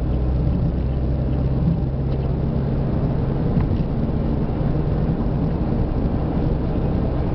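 Vehicle engine and tyres on asphalt while driving at steady speed, heard from inside the cabin: an even low drone with a steady engine hum.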